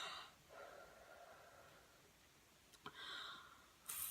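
Near silence broken by a few soft breaths, a faint click about three seconds in, and a quick breath in at the very end.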